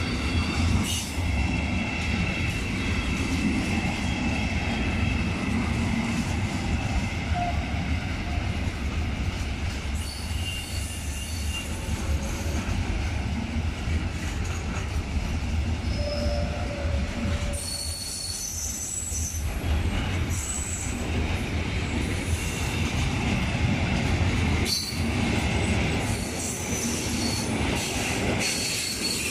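Intermodal freight wagons loaded with road semi-trailers rolling past on the track, with a steady heavy rumble and wheel squeal coming and going in high thin tones.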